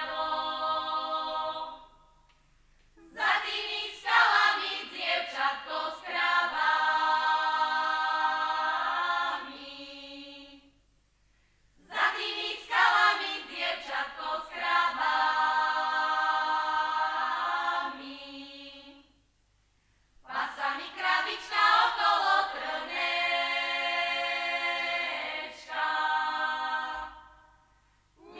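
A group of women singing a Slovak folk song together, unaccompanied, in three long phrases. Each phrase ends on a held note and is followed by a short pause for breath.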